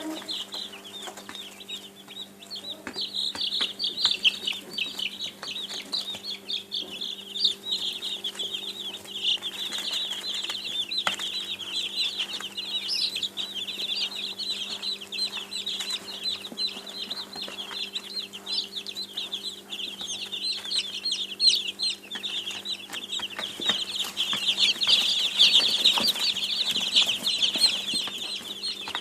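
A brood of baby chicks peeping continuously, many high-pitched cheeps overlapping, busiest near the end. A steady low hum runs underneath.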